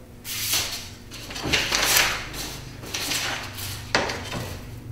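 Paper pages rustling and sliding as a plans booklet is handled, with a steel straight edge being shifted and laid on the sheet; one sharp tap about four seconds in.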